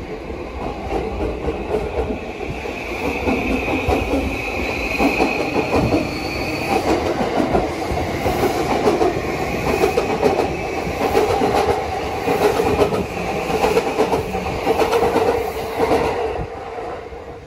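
JR Yamanote Line E235-series electric commuter train pulling out and accelerating, with wheels clacking over the rail joints and a high motor whine that rises in pitch. The sound fades near the end as the train draws away.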